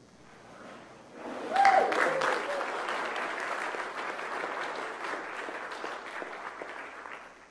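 Congregation applauding after a baptism, starting about a second in, with one short cheer from a voice at the outset, then a steady clapping that stops just before the end.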